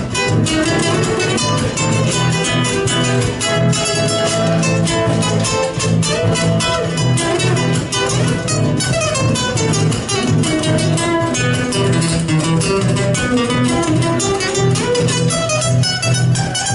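Instrumental break of a folk song: plucked guitars picking a fast, busy melody over a steady low bass, with no singing.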